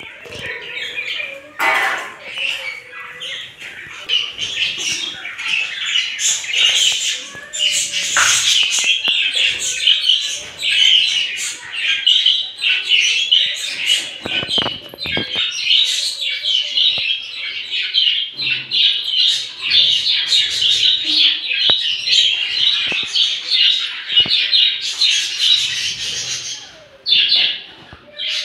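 Small birds chirping and chattering without pause, many quick high notes overlapping, with a few knocks in between.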